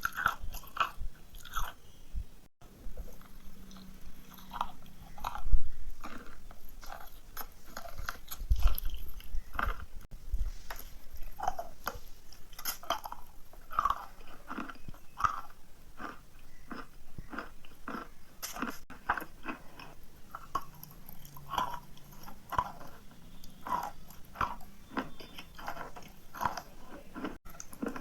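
Pieces of chalk being bitten and chewed, with a steady run of sharp crunches, about two or three a second, and a few louder bites now and then.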